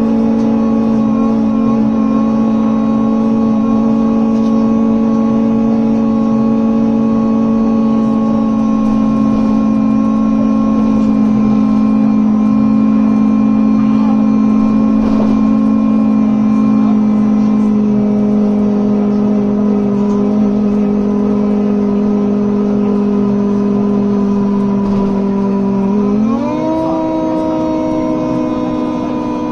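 Inside a moving BMC Procity city bus: a loud, steady hum from its switched-on cooling fans over the Cummins ISB6.7 diesel. The pitch sinks slowly, then rises quickly about 26 seconds in.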